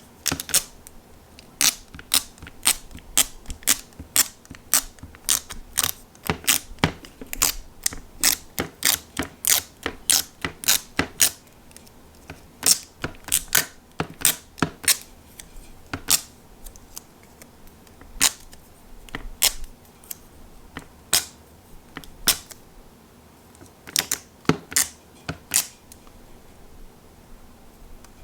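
Sharp clicks as a dust-removal sticker is dabbed onto and pulled off a Galaxy Z Fold 4's screen, quickly at first, about two to three a second, then more slowly, petering out near the end.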